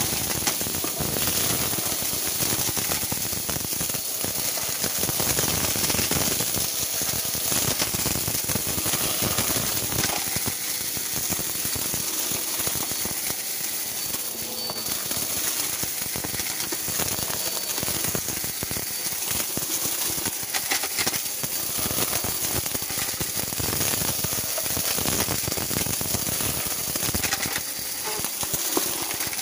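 Upright bagless vacuum cleaner running as it is pushed back and forth over carpet, with a constant crackle and rattle of small glittery debris being sucked up into its clear bin.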